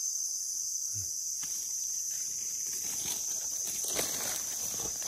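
Steady high-pitched drone of forest insects, with dry leaf litter crunching and crackling underfoot from about three seconds in.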